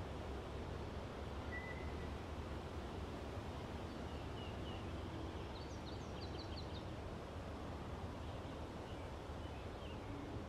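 Outdoor ambience: a steady low rumble of background noise with faint, scattered bird chirps and a short quick trill of birdsong about six seconds in.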